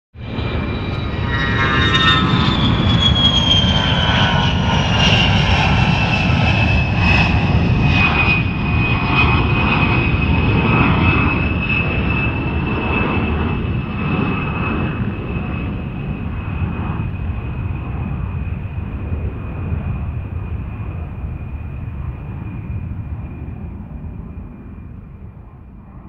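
Jet aircraft engine: a loud rumble with a high whine that falls in pitch over the first several seconds and then holds steady. It starts suddenly and fades slowly through the second half.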